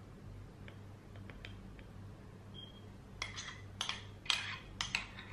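Metal spoon clinking against a drinking glass while whipped coffee foam is spooned on top: a few faint ticks, then about six sharp clinks in the last two seconds.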